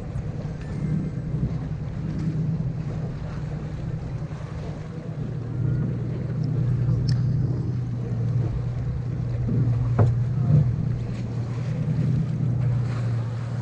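Small tour boat's engine running steadily under way, with water and wind noise over it; it gets a little louder about halfway through, and there is a sharp knock near the end.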